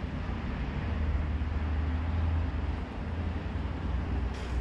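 Steady low outdoor rumble with an even hiss over it, and a brief faint tick about four seconds in.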